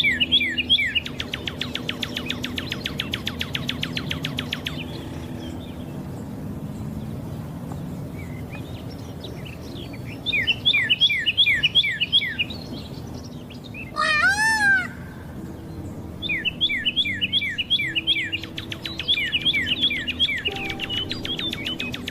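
Birds chirping in repeated series of quick downward-sliding notes, with a fast trill early on and one longer arching call about fourteen seconds in. A low steady hum runs underneath.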